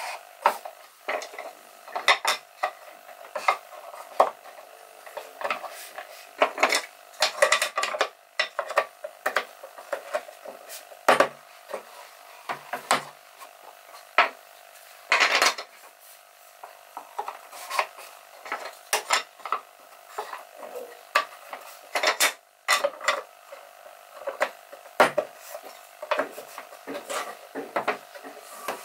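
Irregular light clicks, knocks and clinks of hand work on wood, with a brief longer scrape about halfway through, over a faint steady hum.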